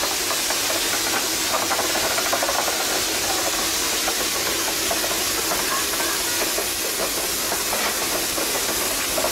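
Steady hiss of steam from a Baldwin 0-6-2T steam tank locomotive standing with steam up, with a few faint clicks early on.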